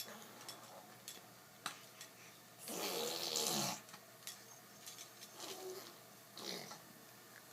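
A child making vocal sound effects: one loud, rasping, breathy noise about a second long, about three seconds in, then two shorter, softer ones near the end. A single sharp click comes just before the loud one.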